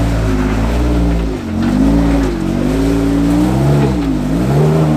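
Off-road Jeep engine revving up and down in repeated swells, pitch rising and falling five or six times, as it works a rock crawler over ledges.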